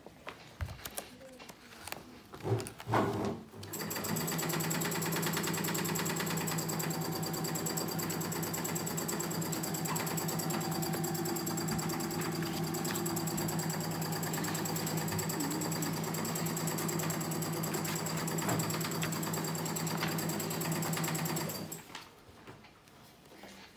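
Sewing machine running steadily with a fast even stitching rhythm for about eighteen seconds, starting abruptly about four seconds in and stopping near the end. A few light knocks come just before it starts.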